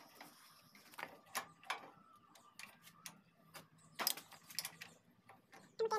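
Hand wrench clicking and clinking in short, irregular bursts, with a dense cluster about four seconds in, as the nut on the gear shaft of a toka chaff cutter is tightened.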